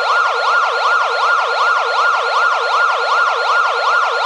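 Siren sound effect in a fast yelp, its pitch rising and falling about four times a second.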